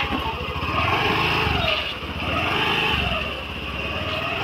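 Honda Dio scooter's small single-cylinder four-stroke engine pulling away from idle. It revs up about a second in, eases off briefly, revs again and drops back near the end.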